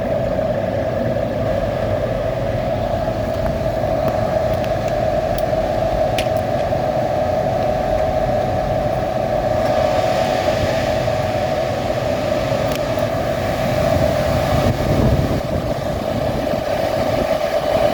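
Many Bitcoin ASIC miners' cooling fans running together: a loud, steady rush of air with a strong constant hum. About ten seconds in, a higher hiss of moving air grows louder.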